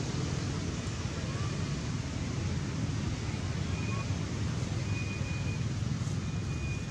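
Steady low rumbling background noise with no single clear source. A faint, thin high tone comes and goes several times in the second half.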